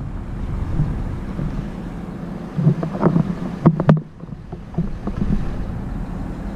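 A boat's engine running with a steady low rumble, wind buffeting the microphone, and a couple of sharp knocks about four seconds in.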